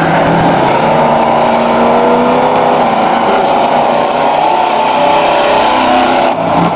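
Demolition trucks' engines running loud and steady on the speedway track, their pitch rising and falling as they rev through the corners.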